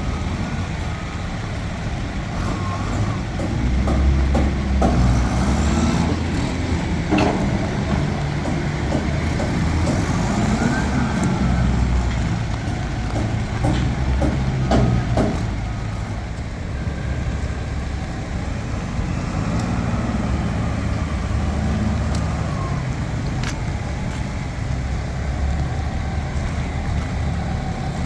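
Heavy diesel engine of a crawler pile driver running, its loudness swelling and easing as it works, with a few sharp metallic knocks.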